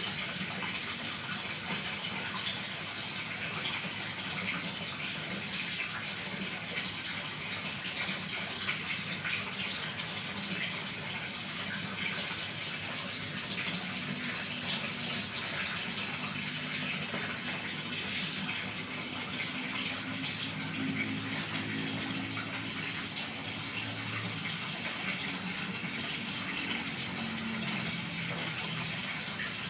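Steady rushing and splashing of water circulating in a fish tank, an even unbroken wash of water noise.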